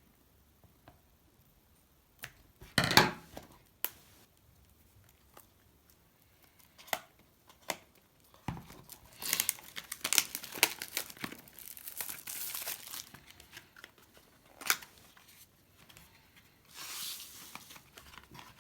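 The wrapper of a sealed trading-card pack being torn open and crumpled by hand. There are sharp rips and crinkling, with one sudden tear early, a long stretch of dense crackling around the middle, and a few more tears and rustles later.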